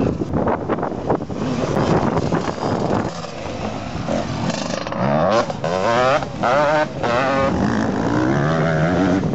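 Motocross bike engines revving hard as the bikes ride up a dirt hill, their pitch wobbling rapidly up and down, then rising near the end as one accelerates.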